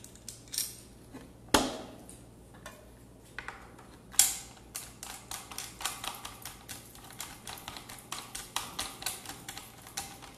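Hand-fitting parts on a Bosch GKS 140 circular saw: hard plastic and metal parts clicking and knocking, with a sharp knock about one and a half seconds in and another around four seconds in, then a quick run of small clicks, several a second.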